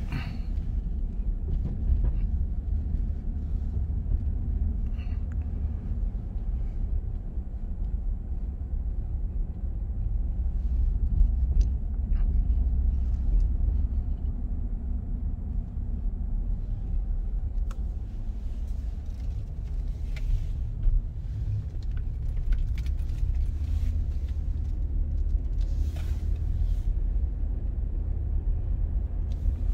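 Steady low rumble of a vehicle's engine and tyres heard from inside the cabin while driving slowly, with a few faint clicks and rattles scattered through it.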